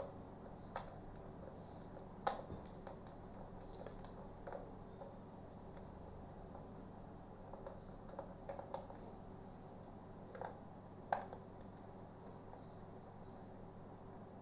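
Scattered light clicks and taps of hands and small tools working on a laptop's plastic case and screws during disassembly.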